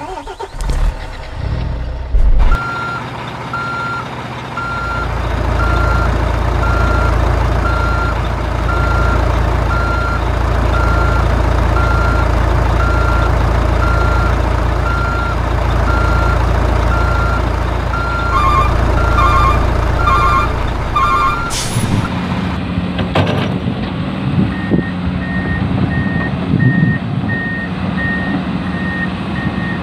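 Toy truck sound modules playing reversing beeps. The first beeper repeats about once a second over a low engine rumble. From about 22 s a higher-pitched beeper repeats somewhat faster over a steady motor hum.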